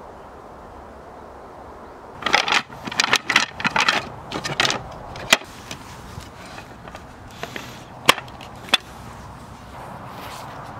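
Wooden parts of a folding camp chair clacking and knocking together as it is handled and set up. There is a quick run of rattling clacks about two seconds in, then a few single sharp knocks.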